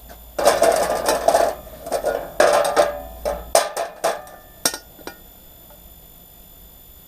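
Stainless steel scrap parts clanking and scraping against a steel workbench as they are handled, a dense run of metallic clatter for about three seconds, then a few single knocks.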